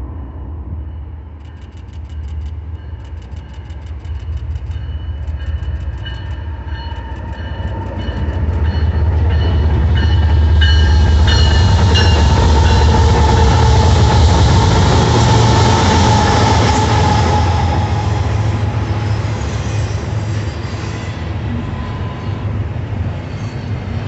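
BNSF freight train passing close by. A rapid dinging sounds in the first few seconds, then the diesel locomotives' deep rumble builds and is loudest about ten to seventeen seconds in as they go by. Double-stack intermodal cars follow, rolling past with steady wheel noise.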